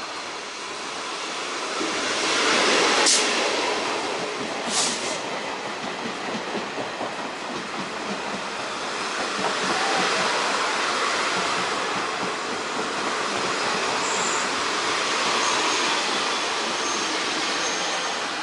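Taiwan Railways passenger train rumbling along beside the platform as it pulls into the station, loudest about two to three seconds in, with two sharp metallic clanks at about three and five seconds. A faint, thin, high wheel squeal comes in later, and the rumble fades near the end.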